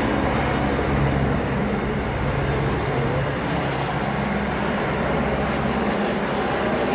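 Helicopters flying overhead: a loud, steady rotor and engine drone.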